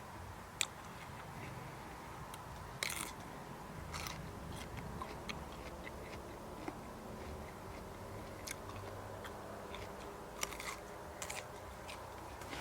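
A person biting and chewing crunchy raw vegetables close to the microphone: irregular crisp crunches scattered through, with the biggest ones about three and four seconds in and again late on.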